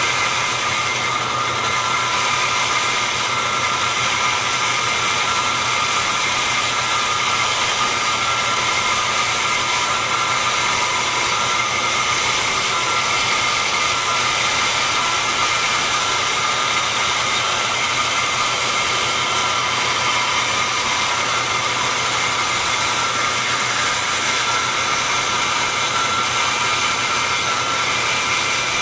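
Vertical bandsaw running with a steady whine, its blade cutting small black Delrin parts free from their carrier strip.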